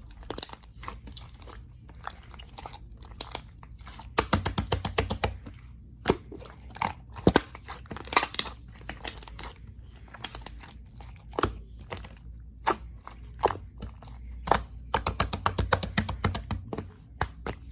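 Red slime being squished and pressed by hand: bursts of rapid crisp clicking and popping, with a few louder single pops in between.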